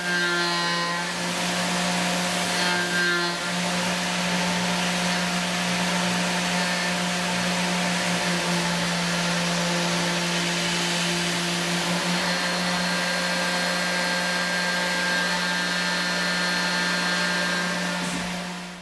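Tormach PCNC 770 CNC milling machine's spindle at about 10,000 RPM, an end mill roughing a pocket in an aluminium block. It makes a steady, loud cutting sound, a constant hum with a hissing, whining layer over it, unchanging throughout.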